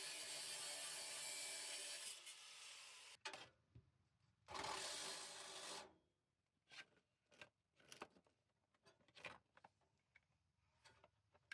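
A hand tool scraping and rasping against the rusty metal exhaust pipe: about three seconds of continuous scraping, a pause, one more stroke of about a second and a half, then a few scattered light clicks and taps.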